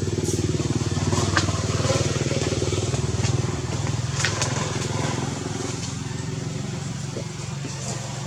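A small motor engine running steadily, its sound slowly fading over the second half, with a few sharp clicks over it.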